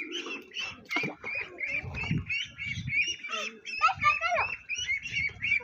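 Domestic ducks calling in a rapid run of short, high calls, several a second, as they are put into a water tank.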